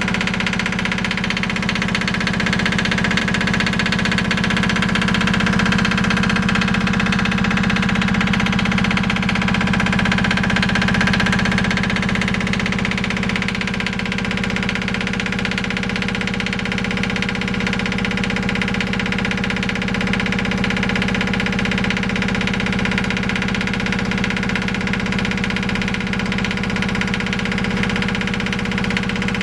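Small inboard marine diesel engine idling steadily, heard up close in its engine compartment.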